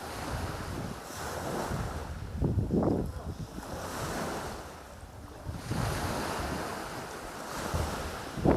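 Sea waves washing up the beach in repeated swelling surges, with gusts of wind hitting the microphone.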